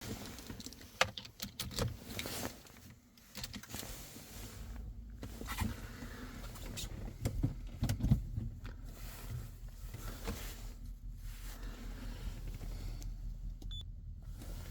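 Several sharp clicks and knocks in the first few seconds, then a 2.0 HDi four-cylinder diesel engine cold-started at −16 °C running with a steady low rumble. It has a very strong knocking.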